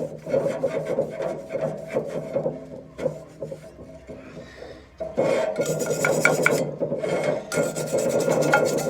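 Rapid back-and-forth scrubbing of a hot cast iron pan with an abrasive scourer, a dry rasping scrape stroke after stroke, to strip old crust back to bare iron. The scrubbing eases off for a couple of seconds in the middle, then comes back harder about five seconds in.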